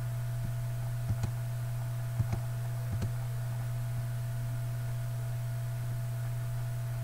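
Steady low electrical hum with a faint steady higher tone, and a few faint computer mouse clicks in the first three seconds, some in quick pairs like double-clicks.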